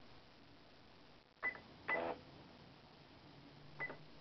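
Electronic cash register keys being pressed, each press giving a short beep. Two presses come about half a second apart, and a third follows near the end.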